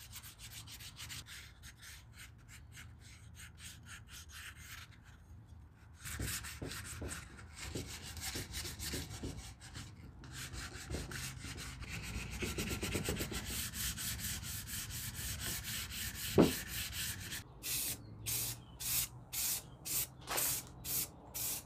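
Hand sanding: abrasive rubbing in quick back-and-forth strokes, with a short pause partway. One sharp knock comes about three quarters of the way through, and near the end the strokes slow to separate passes of about two a second.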